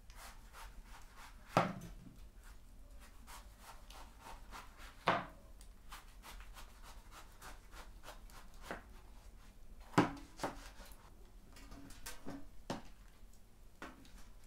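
A kitchen knife slicing through a pomelo's thick rind and flesh on a wooden cutting board, with a soft rubbing of the blade and three sharp knocks, a few seconds apart, as each cut comes through onto the board.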